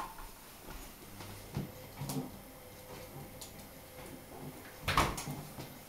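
A flat mop being pushed over a laminate floor, with quiet rubbing and a few soft knocks. The loudest knock comes about five seconds in.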